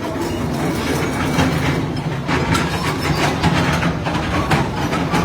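Heavy diesel machinery running steadily at demolition work, with repeated clattering knocks of breaking and falling debris.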